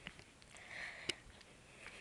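A soft sniff or breath, with two faint sharp clicks, one at the start and one about a second in.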